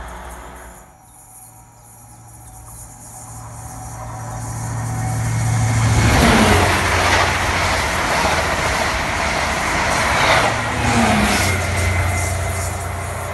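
An Intercity 125 High Speed Train passes at speed. The low diesel hum of its Class 43 power car builds, then the train goes by about six seconds in with a loud rush of wheels and air, its engine tone dropping in pitch as it passes. A second falling engine tone near the end is the other power car going by.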